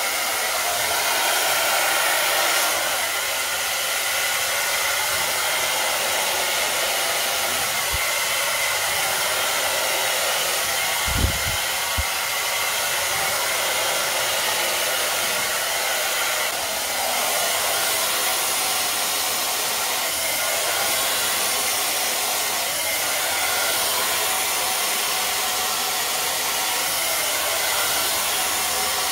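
Conair Smoothwrap hair dryer blowing steadily, a continuous airy rush, with a few brief low thumps near the middle.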